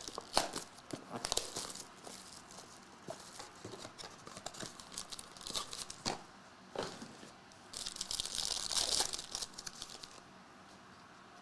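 Trading card pack wrapper crinkling and tearing as it is ripped open and the cards are handled: scattered crackles, with a dense burst of crinkling about eight seconds in.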